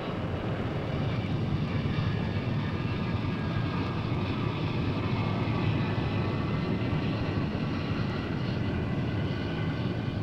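Steady aircraft engine noise: a low, even rumble with faint higher tones running over it.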